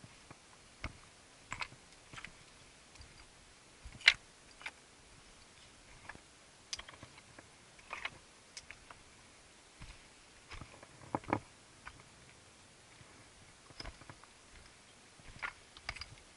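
Hiking boots stepping over loose rock: irregular clicks, scrapes and knocks of stone underfoot at an uneven walking pace, the sharpest knock about four seconds in.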